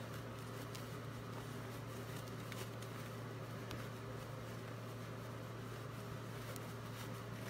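Quiet handling of fabric: faint rustling and a few small ticks as a sewn cloth book page is pulled right side out through its turning gap, over a steady low hum.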